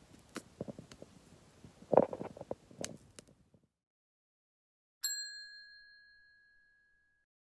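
Faint crackling and knocks with one louder thump about two seconds in, then the sound cuts to dead silence. About five seconds in, a single bright bell-like ding strikes and rings out, fading over about two seconds.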